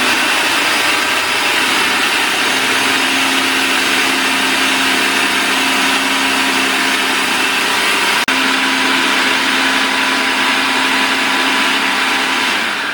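Electric blender running at full speed, puréeing peppers, onion and herbs into Haitian epis seasoning. Its motor cuts out for an instant about eight seconds in and picks straight back up, then winds down at the very end.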